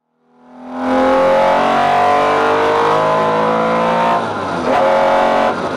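Classic air-cooled Porsche 911 flat-six engine accelerating hard, its pitch rising, with a gear change about four seconds in before it pulls again. The sound fades in at the start and fades out at the end.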